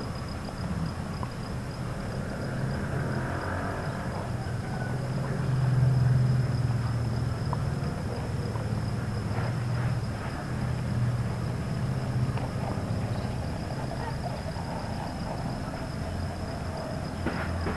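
Outdoor ambience: a steady high insect trill over a low engine-like hum that swells briefly about six seconds in.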